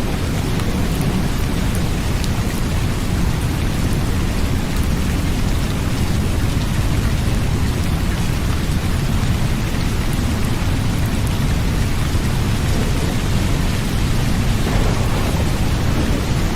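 Steady rain of a sleep ambience track, with fine scattered drop ticks over a continuous deep low rumble.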